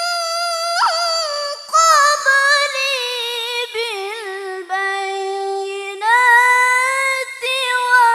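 A young woman's voice reciting the Qur'an in the melodic, competition (mujawwad) style, holding long high notes with wavering ornamented turns and a few short breaks for breath.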